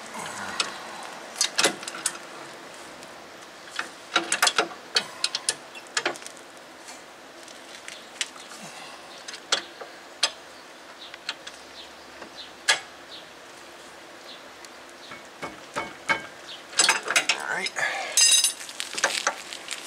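Metal hand tools clicking and clinking at a rear brake caliper and hub: scattered, irregular clicks and taps, busier near the end, with a brief high ringing note.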